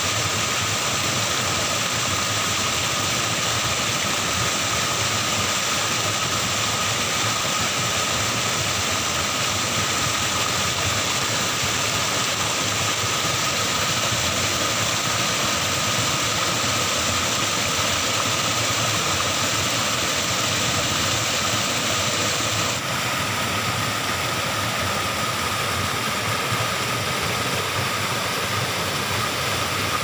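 Small waterfall and swollen stream rushing steadily: an even, unbroken wash of water noise.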